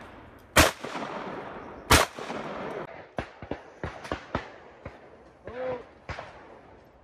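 Two loud shotgun shots about a second and a half apart, each with a short echo trailing after it. Several fainter sharp cracks follow.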